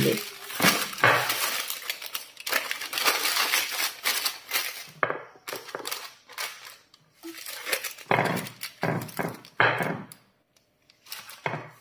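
Parchment paper crinkling and rustling as it is pressed and folded into a ceramic baking dish, in uneven spells with a short pause near the end.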